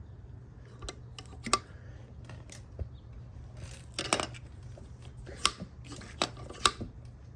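Hand tools working a bolt-and-socket press that pushes a window crank knob onto its metal crank: a handful of sharp, irregularly spaced metal clicks and clinks over a low steady hum.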